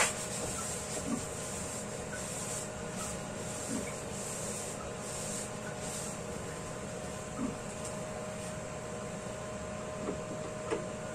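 Paper towel rubbed around the inside of a nonstick wok in several short hissy strokes, with a few light knocks. A steady hum runs underneath.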